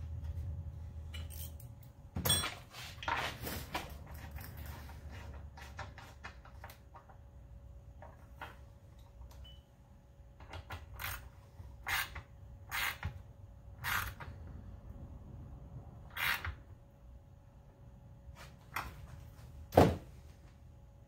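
Scattered clicks and knocks of small parts and hand tools being handled on a workbench as a fuel tank's fitting and washer are refitted, with a low rumble of handling in the first few seconds and the loudest knock near the end.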